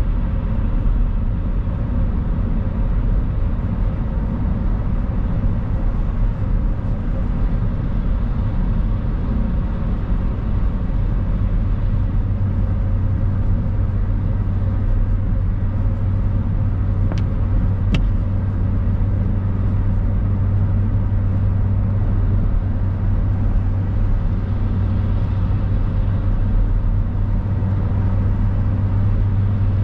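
Steady road noise inside a moving car's cabin: the low rumble of engine and tyres on wet tarmac, its low drone growing a little stronger about halfway through. Two faint clicks come a little past the middle.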